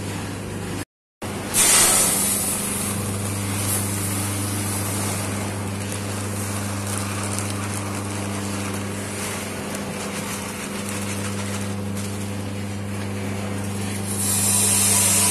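Rice roasting machine running: a steady electric-motor hum under a rushing hiss. The sound cuts out for a moment about a second in, and the hiss grows louder and brighter near the end.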